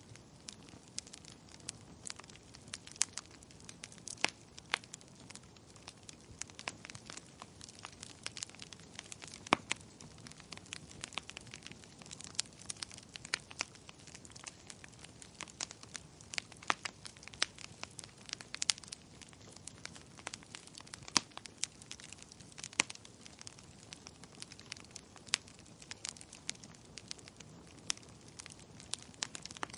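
Wood fire crackling in a fireplace: irregular sharp pops and snaps over a soft steady hiss of burning.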